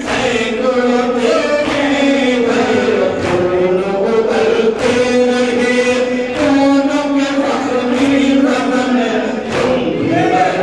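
A noha chanted by a male reciter over a microphone, with a crowd of men chanting along in unison. The singing is cut across by rhythmic matam (chest-beating) strikes, about one every three quarters of a second.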